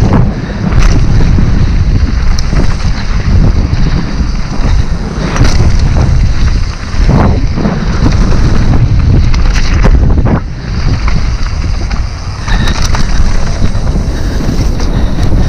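Wind buffeting an action camera's microphone as a mountain bike descends a dirt and gravel trail at speed, with tyre noise and scattered knocks and rattles from the bike over bumps.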